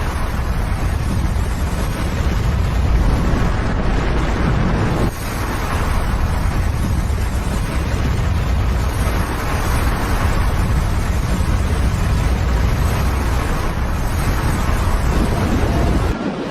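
Avalanche of snow pouring down a mountainside, a steady deep rushing noise mixed with wind buffeting the microphone, with a brief dip about five seconds in.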